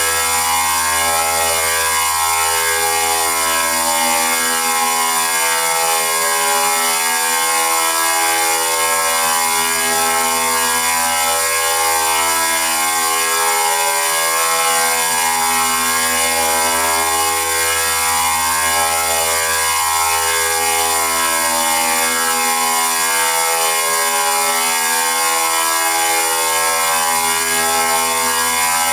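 Synthesized robot sound effect made with Autotunebot: a continuous buzzy electronic tone full of overtones, its pitch warbling and shifting in small steps at steady loudness.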